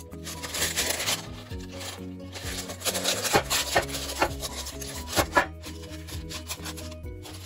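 Baking parchment paper rustling and crinkling as it is handled and folded over, with a few sharper crackles in the middle. Soft background music plays underneath.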